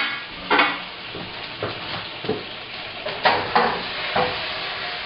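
A hot frying pan sizzling with leftover chicken juices on a gas burner, over a steady hiss, with several sharp metal clanks of tongs and the pan against the stove.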